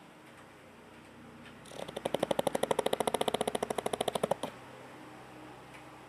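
A sleeping pug snoring: one long, fast-rattling snore of about a dozen flutters a second, starting about two seconds in and lasting nearly three seconds. The pug is in deep sleep, worn out from a long walk.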